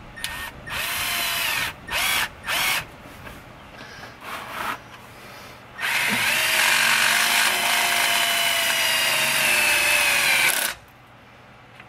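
Power drill boring a drain hole in the bottom of a 68RFE automatic transmission's pan. It runs in a few short bursts, then in one long run of about five seconds whose whine sags slightly in pitch, and it stops abruptly near the end.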